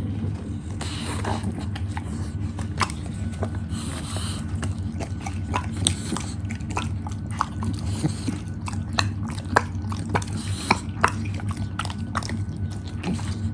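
English bulldog chewing small pieces of apple, with irregular open-mouthed smacks and clicks and a few longer, sloppier bursts of slobbering, over a steady low hum.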